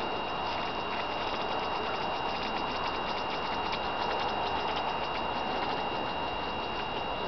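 Oil bubbling in a glass bottle: a steady hiss with many small irregular ticks and crackles, over a faint high steady whine.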